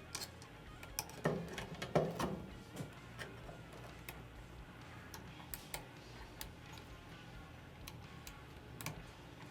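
Small metal clicks and light knocks from rifle parts and tools being handled during a drop-in trigger install, with a quick cluster of knocks about one to two and a half seconds in, then occasional single ticks.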